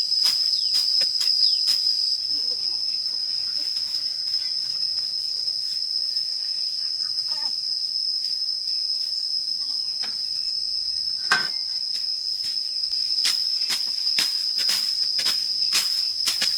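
Insects chirring in one steady high tone, with frequent short sharp clicks and a louder knock about eleven seconds in.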